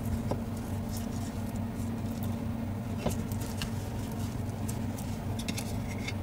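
Faint scattered clicks and light scrapes of small parts being handled and fitted together, over a steady low electrical hum.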